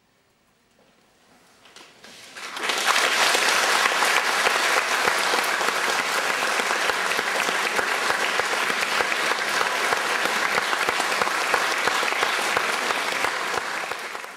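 Audience applauding after a brief hush: the clapping starts about two seconds in, swells quickly, holds steady, and begins to thin out near the end.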